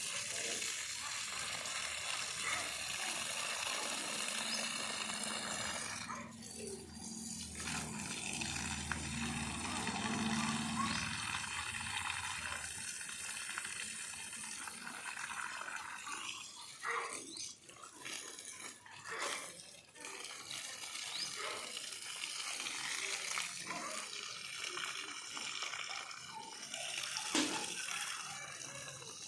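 Water pouring and splashing while plants are watered, a steady rushing hiss that breaks off briefly about six seconds in and turns patchier and uneven in the second half.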